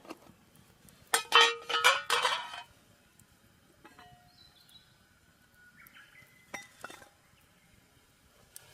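Camp tableware clinking as it is handled: a quick run of clinks about a second in, then a few lighter clicks later.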